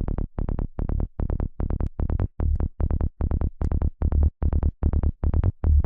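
Psytrance kick and rolling bass loop from the Kick N Bass Gel software synth, in the key of D. It plays as a fast, even stream of short, deep pulses, with the bass's second harmonic (the upper D) boosted so that it stands out more.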